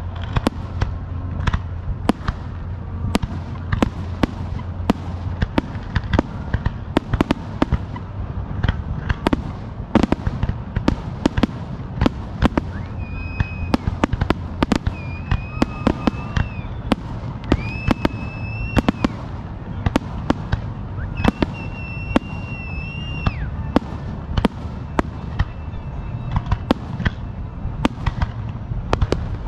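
Fireworks going off in a dense barrage: rapid sharp bangs and crackles, several a second, over a low rumble. In the second half, high whistling tones about a second long rise above the bangs several times.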